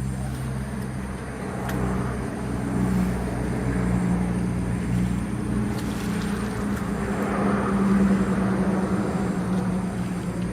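An engine running steadily, its hum holding a constant pitch, with a rushing noise that swells and fades over it.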